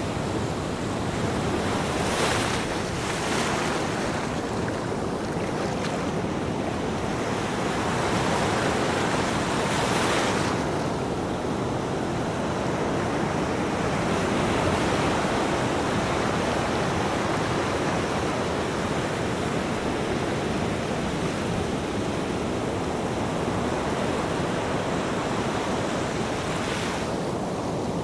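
Ocean waves breaking on a beach: a continuous wash of surf, with hissing swells as waves break, about two seconds in, around ten seconds and near the end.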